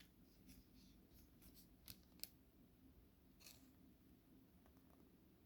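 Faint clicks and rustles of trading cards being slid and flipped through by hand, with a sharper click a little over two seconds in.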